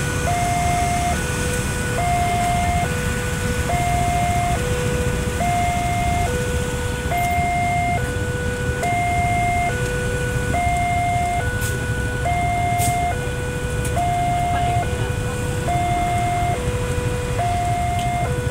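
Railway level-crossing warning alarm sounding its two-note electronic chime, a higher and a lower note alternating, each just under a second long, over a low rumble of waiting traffic.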